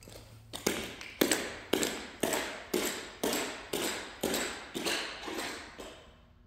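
Footsteps of shoes on a hardwood floor, about a dozen steps at roughly two a second, growing fainter as the walker moves away. Each step echoes briefly in the large, bare room.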